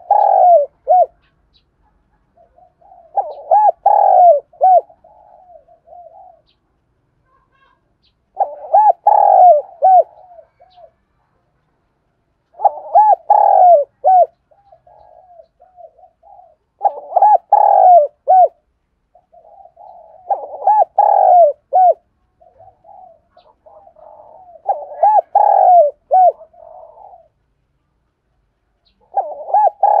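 A caged spotted dove, a decoy bird, sings its calling song: phrases of several loud coos, repeated about every four seconds, with softer cooing between them.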